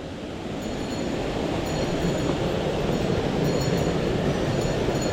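Mountain stream water rushing steadily over rocks, swelling a little in the first couple of seconds and then holding even.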